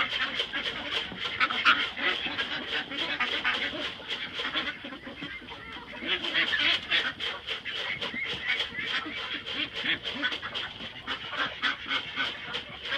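Domestic ducks quacking, calls coming several a second and thinning briefly about five seconds in.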